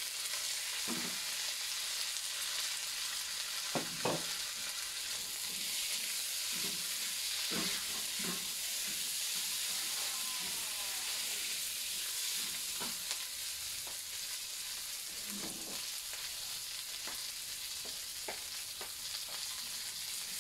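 Asparagus and carrot pieces sizzling in hot oil in a wok with fried anchovies and chili, stir-fried with a silicone spatula that scrapes and knocks against the pan every few seconds. The sizzling stays steady throughout.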